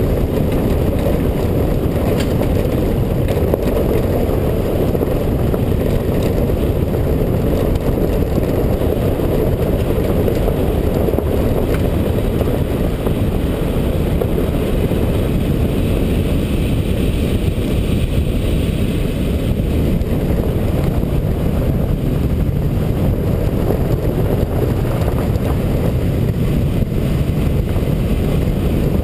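A car driving along a country road: steady, loud road and wind rumble. A higher hiss swells for a few seconds about halfway through.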